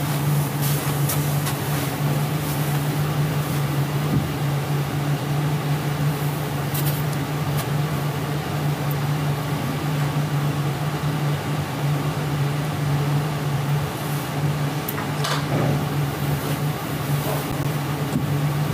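Steady low hum and hiss of room noise from the played-back interview-room recording, like a ventilation fan, with a few faint clicks and knocks now and then.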